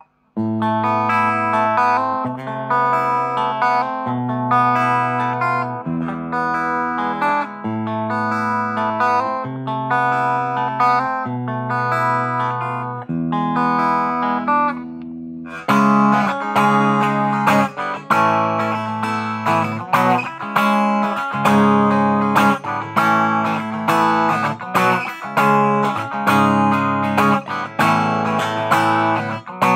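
Electric guitar, a Chinese Gibson Flying-V replica, played through its Ibanez QM-series bridge pickup, sounding out held chords with changing bass notes. About halfway through it moves to a brighter, busier passage of quickly picked notes.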